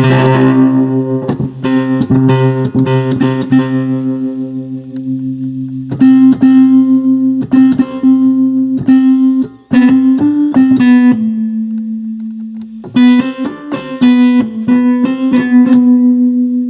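Vintage electric keyboard played after a repair, switched back on to test it: quick plucked-sounding notes and chords over sustained low notes. The low notes change pitch a few times.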